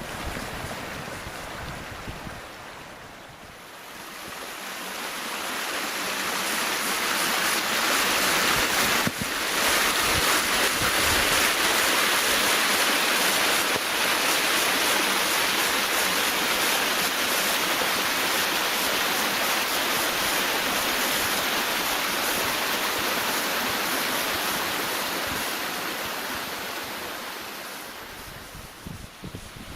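Steady rush of water from a mountain river cascade, swelling in over the first few seconds and fading out near the end.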